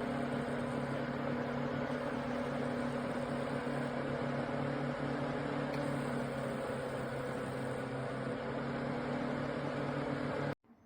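A small electric fan running steadily with a motor hum and airflow noise. It cuts off abruptly near the end.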